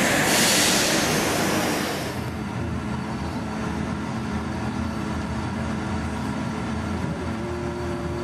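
Bombardier Dash 8-Q400's Pratt & Whitney PW150A turboprop engines running at low power, heard inside the cabin: a steady drone with a few held tones, one of which steps up slightly near the end. It opens with about two seconds of louder, hissier noise that drops away suddenly.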